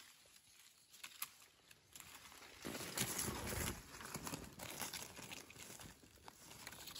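Dry leaf litter rustling and crackling as gloved hands work the forest floor around a mushroom, with a few small clicks. The rustle is loudest for about a second starting near three seconds in.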